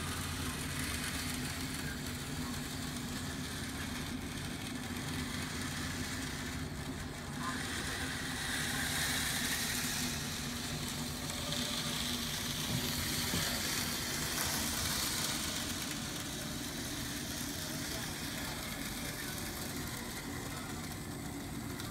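N scale model train running on the layout's track: the small motor's whir and the wheels' rattle over a steady low hum, getting louder and hissier twice in the middle as the train passes close.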